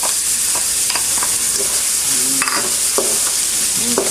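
Garlic sizzling in hot oil in a pan, a steady hiss, while it is stirred, with scattered clicks and taps of the utensil against the pan.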